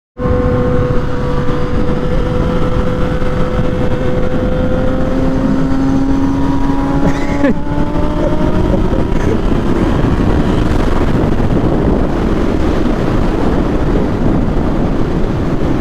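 Yamaha FZ-09 inline-triple motorcycle ridden on the road, heard through heavy wind rush on the rider's microphone. The engine note climbs slowly under acceleration, then drops abruptly about halfway through, as at a gear change or roll-off, and fades under the wind.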